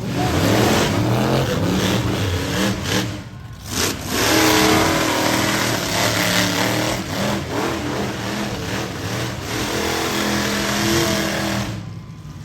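Monster truck engine revving hard, its pitch climbing and falling again and again, with a brief lift off the throttle a little past three seconds in and another near the end.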